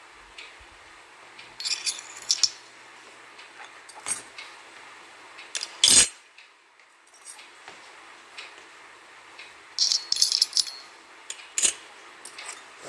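Miniature stainless steel toy dishes and spoons clinking and jingling against each other as they are handled and set down, in several short bursts. The loudest is a single clank about six seconds in.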